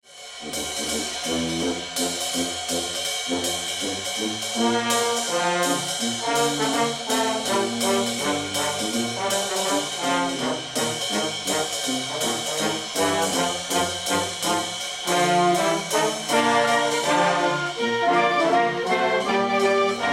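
Intro music led by brass (trombone and trumpet) over a steady beat with regular drum hits.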